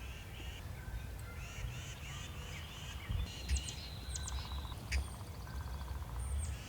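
Songbirds singing and chirping, with runs of quick repeated notes and sharp high chirps around the middle, over a low steady rumble.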